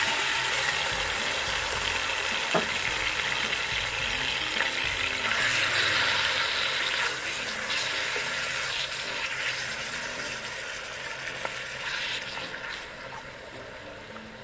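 Wild duck pieces sizzling as they sear in a hot cast-iron Dutch oven, stirred and scraped with a wooden spatula. The sizzle is loudest just after the meat goes in and dies down steadily, with a sharp knock about two and a half seconds in.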